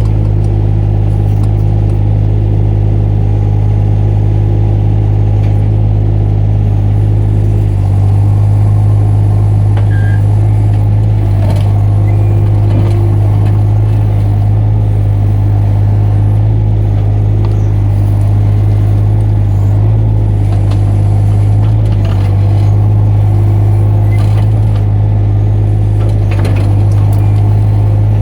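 Mini excavator's diesel engine running steadily under work, with a strong low hum and slight shifts in load and a few faint knocks from the machine.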